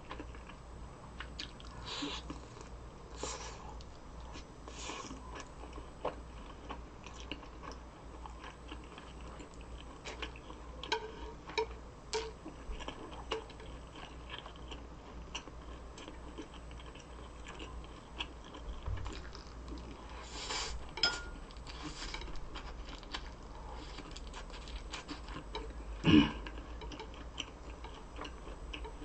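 Close-miked chewing and biting of food, with many small mouth clicks and crackles and a louder single sound about 26 seconds in.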